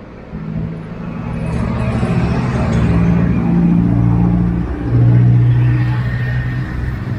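A motor vehicle's engine running close by with a steady low hum that shifts pitch a few times. It grows louder to a peak about five seconds in, then eases off.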